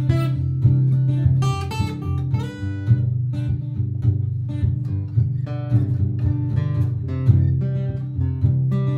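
Martin GPCPA4 acoustic guitar playing improvised plucked melody notes over a looped guitar part that keeps a steady low layer going underneath.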